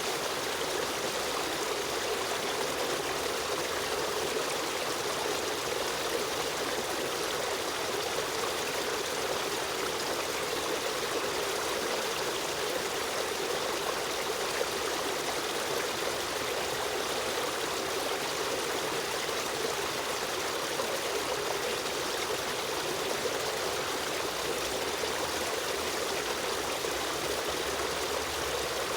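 Stream water running and trickling over stones, a steady even rush with no breaks.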